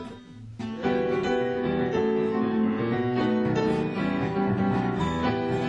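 Piano melody played live, starting about a second in with held chords and notes.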